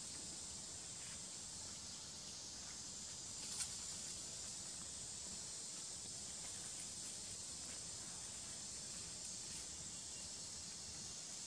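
Steady high-pitched insect drone, with a faint click about three and a half seconds in.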